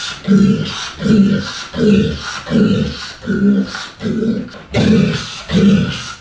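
A man's voice barking a rough repeated syllable ('gosu') over and over in an even rhythm, about eight times, slowed to half speed so each one is drawn out.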